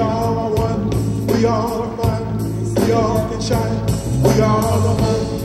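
Live band music: a chorus of voices chanting a short phrase in unison over and over, over a steady drum beat and bass.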